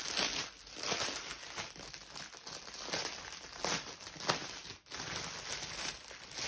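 Plastic packaging crinkling and rustling in uneven crackles as a bag of diamond painting drill packets is handled and opened.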